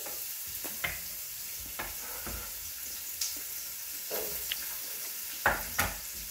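Onion pieces sizzling in hot olive oil in a pot, a steady hiss broken by scattered light knocks, the two loudest a little before the end.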